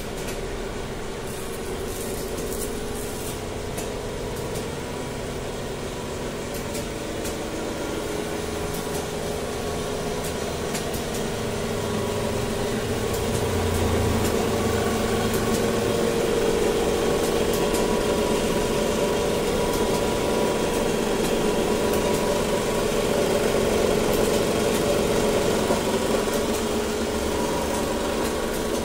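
Filter bag production line running: a steady mechanical hum with a few fixed tones, growing louder about halfway through.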